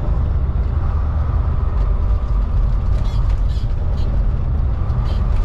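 Semi truck's engine and road noise droning low inside the cab, with a few light ticks and creaks around the middle.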